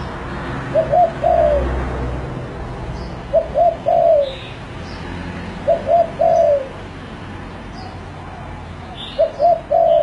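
Spotted dove (tekukur) cooing: four phrases a few seconds apart, each two short coos followed by a longer falling coo.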